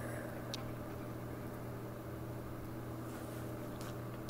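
Electric fan running with a steady hum.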